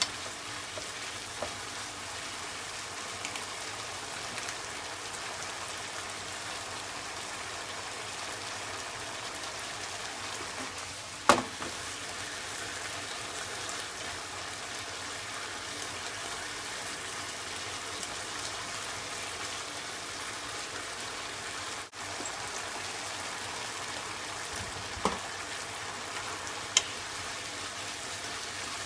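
Daikon peel and pork sizzling in a pan as the stir-fry-braise cooks, a steady hiss. There are a few sharp knocks, the loudest about eleven seconds in and two smaller ones near the end.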